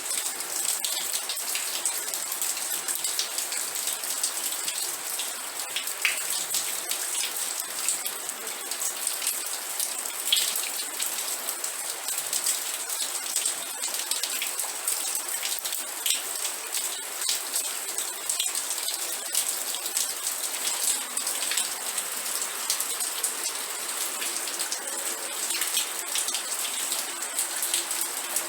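Steady rain falling, a dense patter of individual drops striking a surface.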